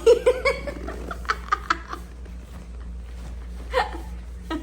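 A young child's short giggles and squeals in a quick run of bursts over the first two seconds, then twice more briefly near the end.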